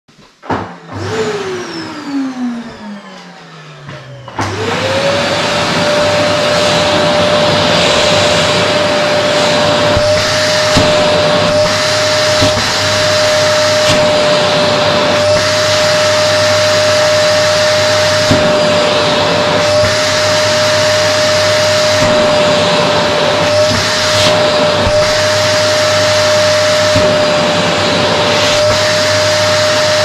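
Vacuum cleaner motor: after a click, a whine falls in pitch for about three seconds. About four seconds in the cleaner switches on, its whine rising quickly to a steady pitch over a loud rush of air. It runs steadily as the open hose handle sucks at a fabric pillow, the sound shifting briefly now and then as the opening presses into the cloth.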